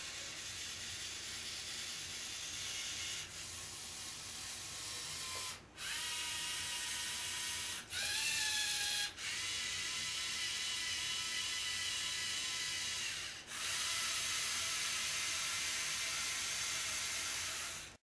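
Lego Mindstorms NXT servo motors whining through their Technic gear trains as the biped robot moves its limbs, in several runs of a few seconds with short stops between, the pitch rising briefly as some runs start. The sound cuts off abruptly near the end.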